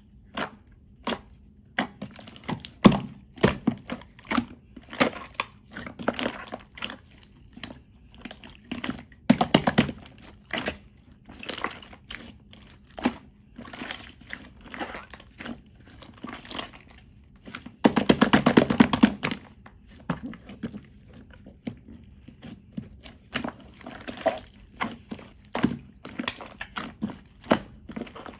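Purple clear slime being pressed, poked and folded by hand, making irregular sticky clicks and pops, with stretches of rapid crackling about ten seconds in and again near twenty seconds.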